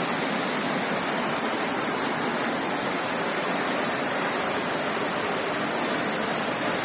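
Fast-moving floodwater from an overflowing creek rushing past in a steady, unbroken wash of noise.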